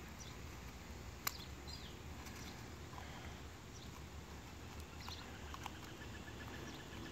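Quiet garden ambience: a low steady rumble with small bird chirps now and then, and a short rapid trill near the end. About a second in, one sharp click of a metal spatula tapping a glass test tube.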